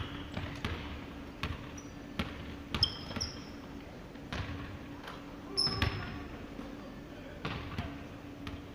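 Basketball bouncing irregularly on a hardwood gym floor during play, with short high sneaker squeaks about three and six seconds in, over a faint steady low hum.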